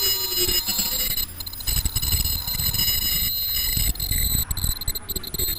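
Automatic KN95 mask-making machine running: steady high-pitched whine with an uneven low rumble and light clatter from its rollers and feed mechanism, the rumble growing heavier after a second or two.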